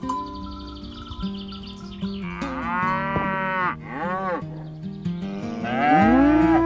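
Cows mooing: a long moo about two seconds in, a short one just after, and a louder, longer moo rising at the start, near the end.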